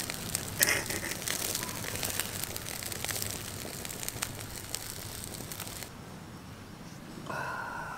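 Wood-and-charcoal fire crackling and popping under a whole chicken roasting on a bamboo skewer, a steady hiss full of small snaps that stops abruptly about six seconds in. A short pitched call comes near the end.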